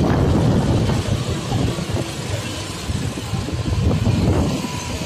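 Street traffic: motorbikes and cars going by in a steady low rumble.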